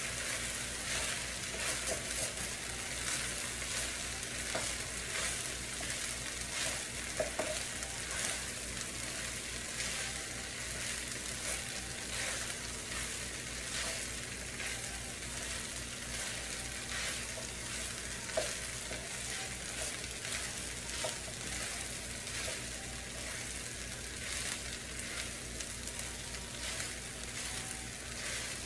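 Chicken fried rice sizzling in an electric skillet as a wooden spatula stirs and scrapes through it: a steady sizzle with frequent short scraping clicks.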